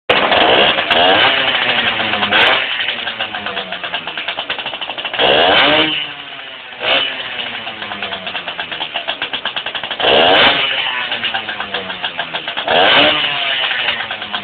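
Motorcycle engine being revved in about six quick blips, each snapping up to high revs and then falling slowly back toward idle. It drops lowest about six seconds in.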